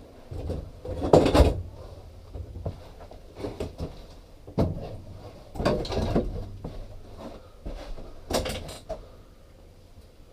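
Irregular knocks and clunks of objects being handled and set down, in a few separate bursts, the loudest about a second in.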